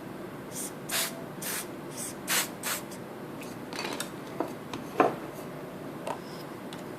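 Laptop parts being handled during reassembly: a string of short rubbing and scraping strokes, then a few sharp clicks, the loudest about five seconds in.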